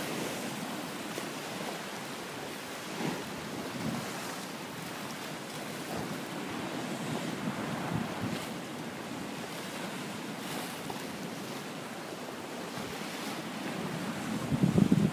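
Rough sea waves breaking and splashing against a concrete seawall, with a steady wash of surf and several sharper surges. Wind buffets the microphone, growing louder near the end.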